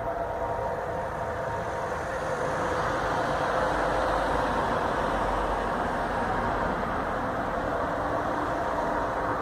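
A steady metallic droning noise of unknown origin, of the kind called 'sky trumpets', sounding like metallic tubes and carrying a few faint steady tones. It grows louder from about two seconds in and then holds.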